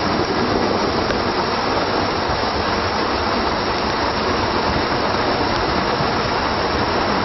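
Waterfall in a narrow rock gorge pouring down right by the microphone: a loud, steady rush of falling water.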